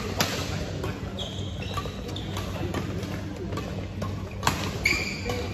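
Badminton rackets striking a shuttlecock in a rally: a sharp hit just after the start and two more about four and a half seconds in, with short high squeaks of sneakers on the court floor, over a steady low hum.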